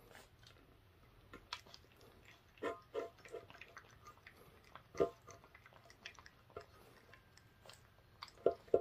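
Puppy licking and nosing at its emptied stainless-steel food bowl: faint scattered wet smacks and light clicks, a few louder ones about three and five seconds in.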